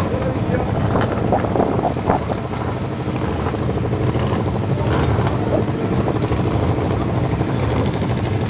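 Hot rod engine idling with a steady low rumble, with onlookers' voices faintly mixed in.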